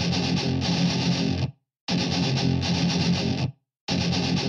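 Intro music of distorted electric guitar, played in short phrases of under two seconds that stop dead twice for a brief silence.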